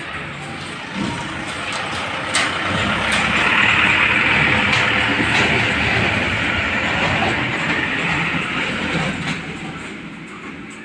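A truck driving past with a rattling body. It grows louder to a peak about four seconds in, with a few knocks, then slowly fades.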